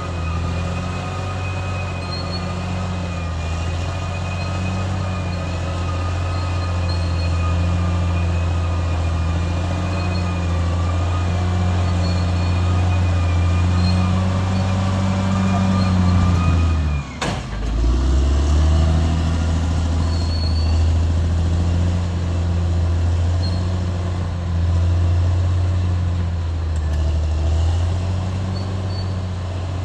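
Caterpillar D6R XL bulldozer's diesel engine running steadily under load, with a thin steady whine above the engine note. A little past halfway the sound drops out abruptly for a moment, then the engine comes back at the same steady level.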